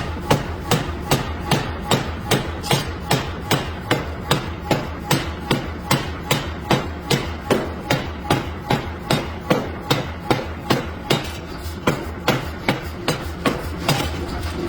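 Steel being forged with a hammer: sharp metal-on-metal blows in a steady rhythm of about three a second, over a low steady hum.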